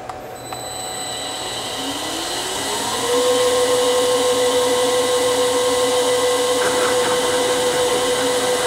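Bridgeport milling machine's three-phase motor, run from a VFD, starting up: a whine rises in pitch over about a second as the motor ramps up, then holds steady at running speed.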